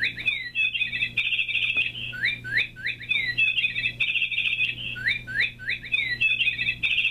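Streamline BTZ947 Nature Calls Birdie alarm clock sounding its bird-chirp alarm: a few rising "tweet-tweet" chirps and then a quick trill. The pattern repeats about every two and a half to three seconds.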